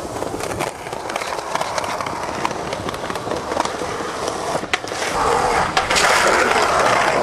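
Skateboard rolling on pavement, the wheels making a steady rumbling hiss, with several sharp clacks of the board. The rolling grows louder about five seconds in.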